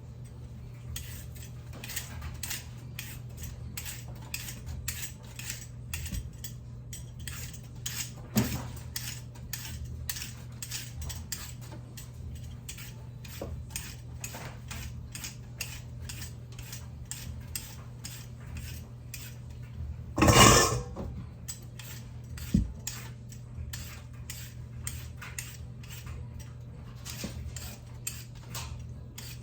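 Kitchen knife chopping on a cutting board in a steady rhythm of about three strokes a second, with a louder clatter of utensils about 20 seconds in and a steady low hum underneath.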